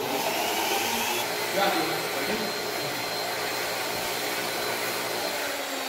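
High-speed soil-dispersion stirrer, a single-spindle drink-mixer type, running at 10,000 to 12,000 rpm as it stirs a soil and distilled-water suspension in its metal cup to disperse the clay. It cuts in abruptly at the start and then runs steadily, a motor hum with several tones over a loud rush.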